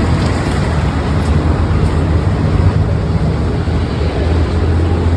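Steady low rumble of industrial laundry machinery running, with a constant hum.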